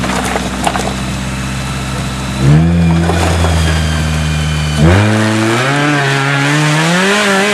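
Off-road crawler's engine working under load as the vehicle climbs a rocky step: held at steady revs, then revved up sharply about two and a half seconds in, again about five seconds in, and climbing higher near the end.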